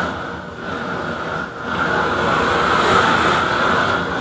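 Propane roofing torch burning with a steady rush of flame, heating a patch of modified bitumen torch-down membrane to melt it for bonding. The noise dips briefly about a second and a half in, then runs a little louder.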